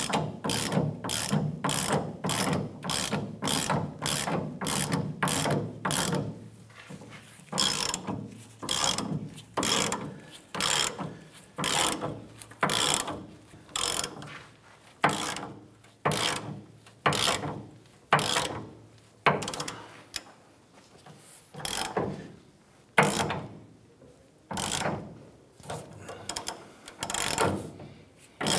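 Hand ratchet clicking in repeated strokes as it turns the screw of a bushing press tool, pulling a new leaf spring shackle bushing into the frame. The strokes come quickly for the first few seconds, then as separate swings about a second apart, with longer pauses between them later on.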